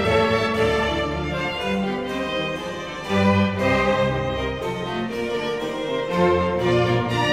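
Background instrumental music led by bowed strings, playing sustained notes over a slowly changing bass line.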